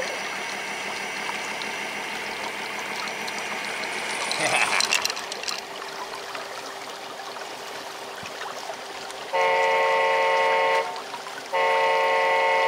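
Electric winch on a large RC semi truck whining steadily as it reels in cable and pulls the truck up a bank, with a stream running underneath. About four and a half seconds in there is a short scuffling rattle, and near the end the RC truck sounds two long, loud, steady horn blasts, the second one longer.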